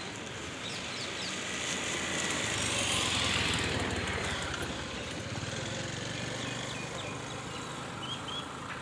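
Motor vehicle engine running with a steady hum, swelling to its loudest about three seconds in and then easing off, with a few faint bird chirps.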